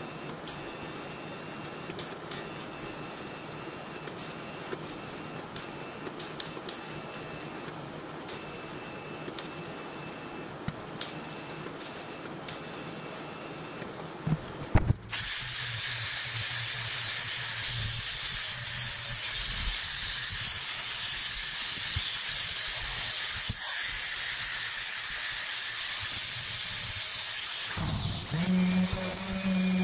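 TIG welding arc on steel square tubing: a steady hiss with small scattered crackles, ending in a few sharp knocks about halfway through. After that comes a louder steady hiss, and near the end a random orbital sander starts with a steady motor hum.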